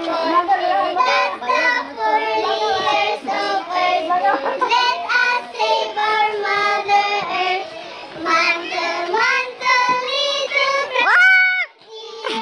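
A group of girls singing a children's circle-game song together. Near the end one voice rises sharply into a high squeal, held briefly before it breaks off.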